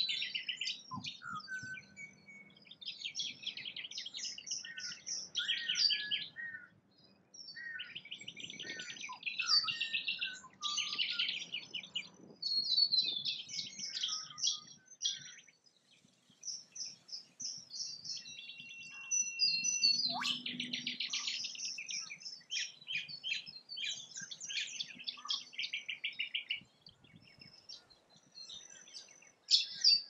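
Chorus of several small birds singing and chirping, with quick trilled phrases overlapping one another and a few short lulls.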